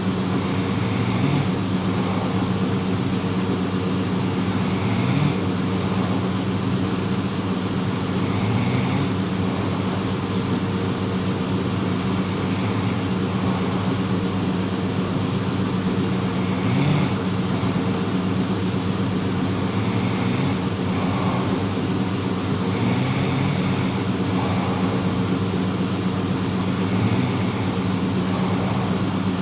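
A person snoring, one snore every three to four seconds, over a loud steady mechanical hum.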